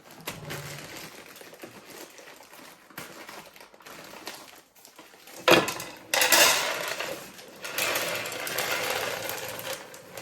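Rapid clattering and rustling of things being handled, with a sharp knock about five and a half seconds in, then a louder, steady rattle for the last few seconds.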